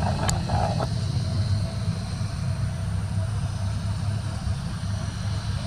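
Twin Pratt & Whitney PW127 turboprops and six-bladed propellers of an ATR 72-600 droning low and steady as the aircraft climbs away, slowly fading.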